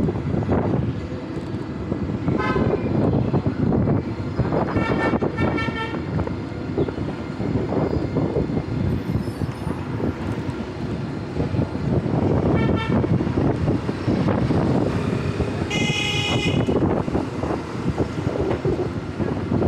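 Wind buffeting a helmet-mounted camera microphone while riding an electric scooter through traffic, with short vehicle-horn beeps about five times: twice in quick succession about a quarter of the way in, and the loudest one some three-quarters of the way through.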